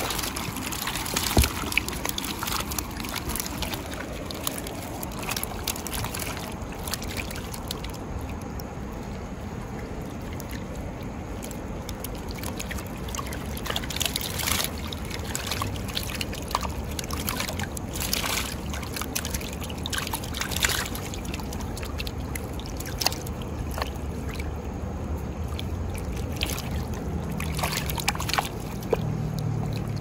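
A fast, swollen creek running high after a typhoon, rushing steadily, with frequent short sharp clicks over the flow.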